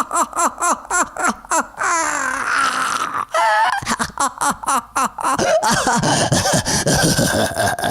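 A man's maniacal clown laughter: quick, high cackling bursts that give way to a drawn-out, wheezing, raspy laugh.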